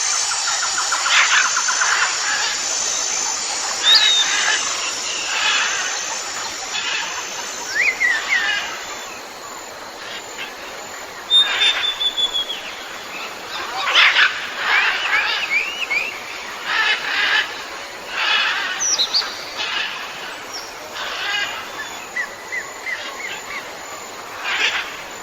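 Tropical forest ambience: many birds chirping, trilling and whistling in short scattered calls over a steady background hiss. A fast high pulsing note in the background dies away in the first third.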